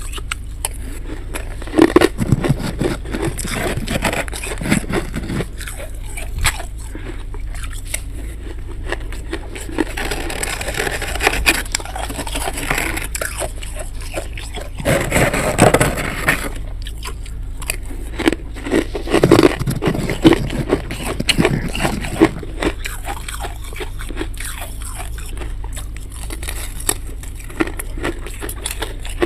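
Thick freezer frost being scraped loose: rough, crackling scraping strokes in irregular bursts, loudest about two, fifteen and nineteen seconds in, over a steady low hum.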